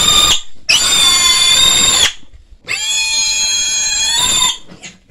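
A pig of about 18 kg squealing loudly in long, high, steady screams, three in a row with short breaks, the first ending just after the start. It is the distress squeal of a pig that has been caught and held.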